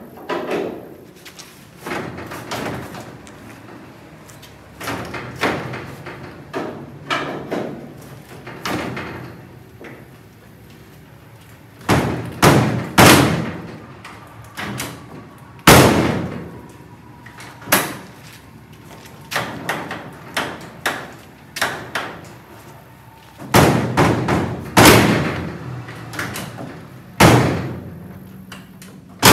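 Steel driver's door of a 1965 VW Beetle being swung shut again and again, clunking against the body, with several harder slams in the second half. The door is not yet closing properly on its newly fitted hinge pillar.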